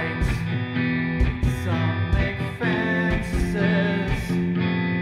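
Alternative rock song, the band's guitars over a drum beat with sharp cymbal-like hits every half second or so.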